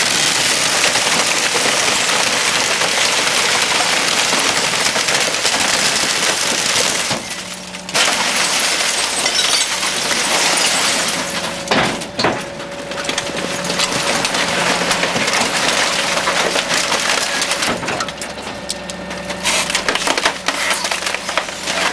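Garbage truck's compactor crushing a load of trash: a dense, continuous crunch of glass breaking and wood splintering that eases off briefly a few times.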